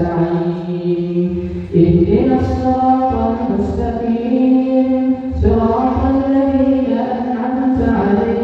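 An imam recites the Quran aloud while leading prayer: a single male voice chanting long, held melodic phrases. It pauses briefly about two seconds in and again around five seconds.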